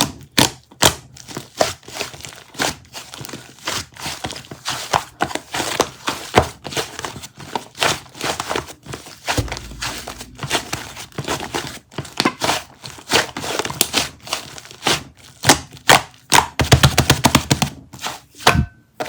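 Close handling noises: dense, irregular crinkling with scattered taps and thunks.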